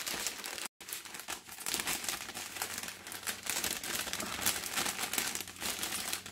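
Clear plastic packets of diamond-painting drills and a cellophane wrapper crinkling as they are handled, a continuous run of crackles that cuts out for an instant near the start.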